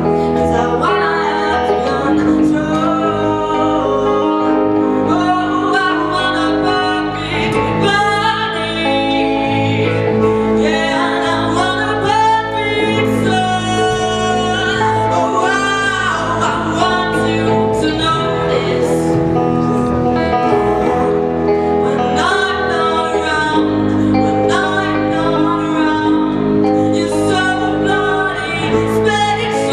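A female vocalist singing live through a handheld microphone, with a band including guitar accompanying her.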